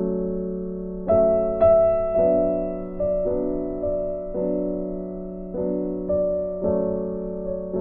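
Background music: soft piano chords, each struck and left to fade.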